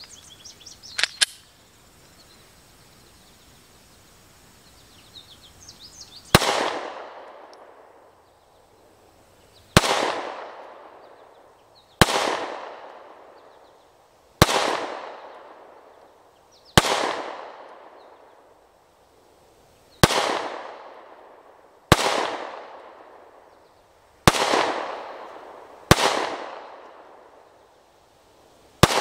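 Smith & Wesson M&P Shield Plus 9mm pistol fired ten times in slow, aimed fire, a shot every two to three seconds, each crack trailing off in a long echo. A few faint clicks of handling come about a second in.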